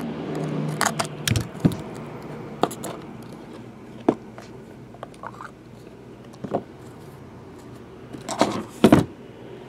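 Handling noise as a foil-wrapped trading-card box is slit open with a utility knife and its stack of cards lifted out: scattered short clicks, scrapes and crinkles, with a louder clatter of knocks a little before the end.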